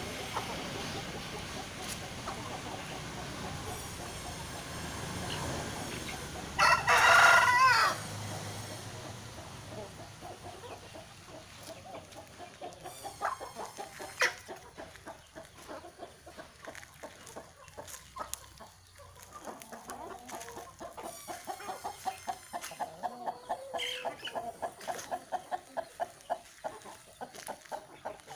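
Aseel chickens in a yard: one loud rooster crow about seven seconds in, the loudest sound, with clucking throughout. In the last third the clucking becomes a fast, even run of short clucks.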